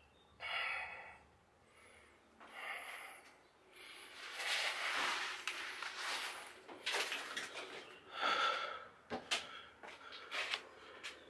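A person breathing heavily in a string of loud exhales and in-breaths after a long climb, with a scatter of sharp clicks and knocks in the second half.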